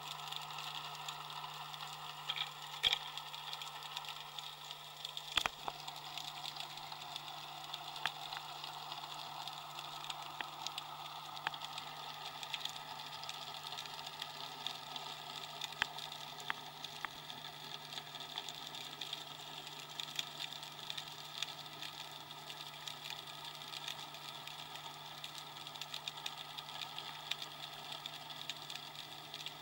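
Underwater ambience through a diving camera: a steady low hum under a constant faint crackle, with scattered sharp clicks, the loudest about five seconds in.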